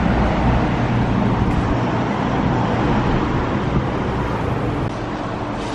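Steady street traffic noise, a low rumble that drops a little in level about five seconds in.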